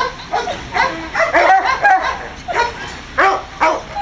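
Tricolour hound barking repeatedly: about a dozen short, high barks in quick runs of two to four.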